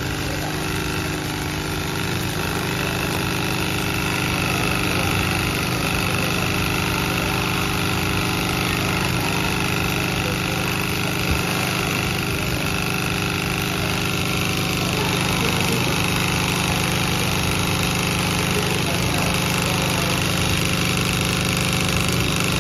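JYL-PM-01 automatic industrial hat sewing machine running steadily, stitching rows of seams on a cap held in its clamp frame. A single brief click about eleven seconds in.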